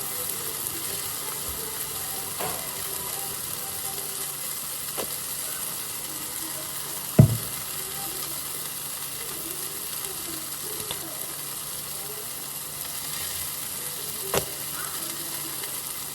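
Leftover cheeseburger reheating in a frying pan, sizzling steadily. A few sharp knocks sound over it, the loudest about seven seconds in.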